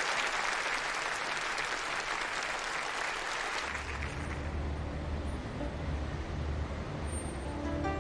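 Audience applauding, the clapping fading away over the first few seconds, then a steady low hum underneath.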